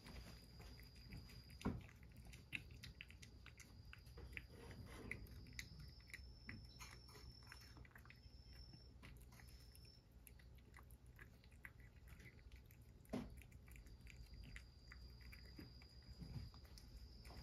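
A cat eating its food: faint, irregular chewing clicks and crunches, with two louder knocks, one near the start and one about three-quarters of the way through.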